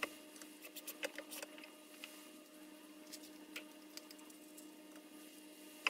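Scattered light clicks and taps of hands handling a wooden box and a cordless drill, over a steady faint low hum. The sharpest taps come right at the start and again at the end.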